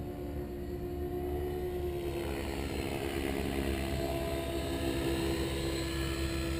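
Synergy E7se electric RC helicopter in flight: a steady whine from its motor and main rotor blades, growing louder about two seconds in as the helicopter comes closer.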